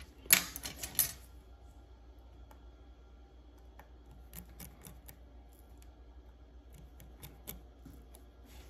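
Small metal clicks and scrapes of watchmaker's tweezers and screwdriver handling tiny steel screws while the pallet bridge screws are fitted into a watch movement. A quick cluster of sharp clicks comes in the first second, then a few faint scattered ticks.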